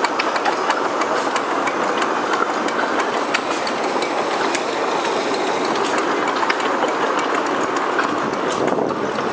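Miniature-railway passenger carriages rolling past close by: a steady rumble of steel wheels on rail, with many irregular clicks as the wheels cross the rail joints.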